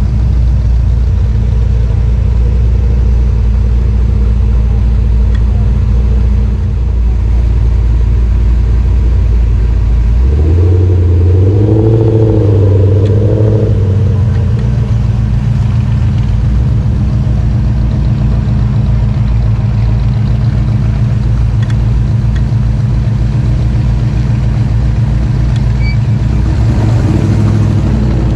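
Engine of a 1947–53 Chevrolet Advance Design pickup running low and steady as the truck rolls slowly. About ten seconds in it is revved up and down for a few seconds, and it is blipped briefly again near the end.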